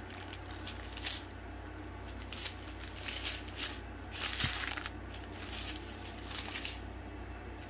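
Small plastic bags of diamond-painting drills crinkling and rustling as they are handled, in short spells, over a faint steady low hum.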